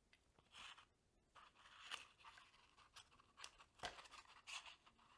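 Near silence, with faint scattered clicks and scrapes of small bicycle brake parts being handled and fitted by hand.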